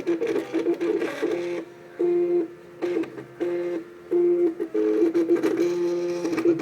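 MakerBot Cupcake CNC 3D printer's stepper motors whining as it prints. Steady pitched tones, each about half a second long, alternate with short quiet gaps and rapid stuttering stretches as the print head changes moves.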